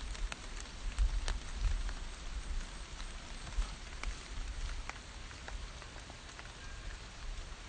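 Rain falling on pokeweed leaves: a steady patter with scattered sharp drop ticks, over a low rumble.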